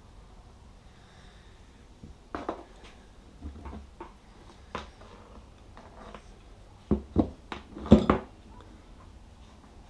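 A backup camera, its cable and a metal mounting bracket being handled and set down on a wooden workbench: scattered knocks and clicks, with a quicker run of louder ones near the end.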